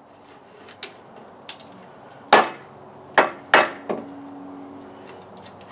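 Wooden baton knocking on the back of the CRKT Woods Chogan's carbon-steel tomahawk head, which is driven like a wedge into a length of wood to split it. A light tap about a second in, then three sharp knocks in quick succession around the middle and a softer fourth.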